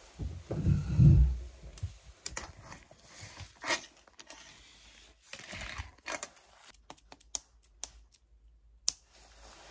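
Close handling noise: a muffled low thump or rub about a second in, then a string of light clicks and taps.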